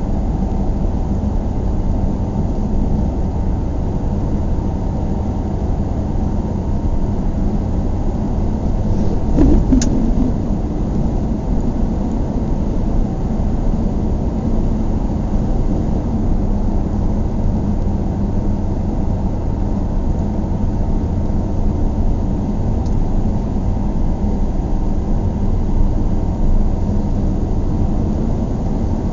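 Inside a moving car's cabin: steady low engine and road rumble. There is one short knock about ten seconds in.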